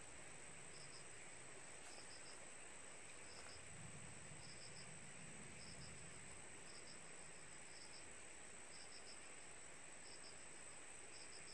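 Faint cricket chirping, short pulsed chirps repeating about once a second, over a steady high-pitched tone.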